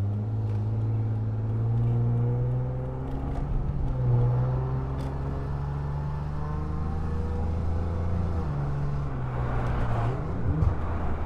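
2010 Lexus IS250 AWD's V6 running through an aftermarket full exhaust with valved mufflers while driving. The engine note climbs slowly in pitch, steps about four seconds in, climbs again and drops about eight and a half seconds in.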